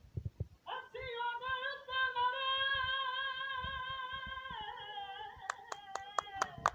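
A lone unaccompanied voice singing one long, high held note with a wavering vibrato into a microphone. About five and a half seconds in, scattered hand claps start.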